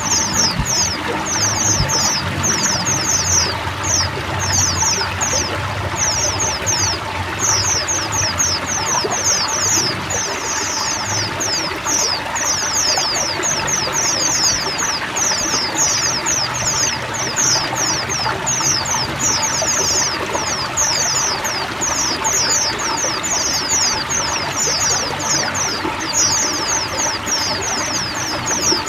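A flock of white-eyes (pleci) singing together, a dense, unbroken chorus of rapid high chirps, over steady running and trickling water.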